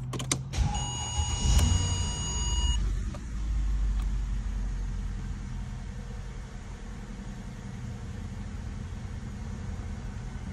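A Mercedes S550's 5.5-litre V8 being started: a few clicks, a steady electronic warning chime for about two seconds, the engine cranking and catching about a second and a half in, then a steady idle.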